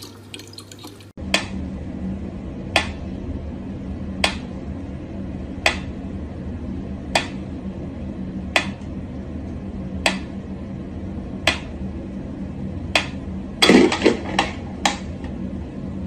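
Mechanical pendulum metronome ticking slowly: one sharp tick about every second and a half, over a low steady hum. Near the end a brief, louder voice-like cry breaks in.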